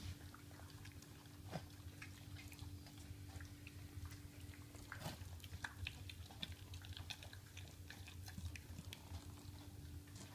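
Dog chewing and eating game meat from a bowl, with many small irregular clicks of mouth and teeth.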